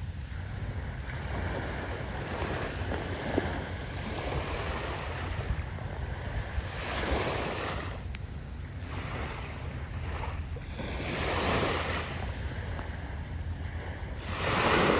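Sea waves breaking and washing up a sandy beach, swelling into a louder wash every few seconds, the loudest near the end. A steady low rumble of wind on the microphone runs underneath.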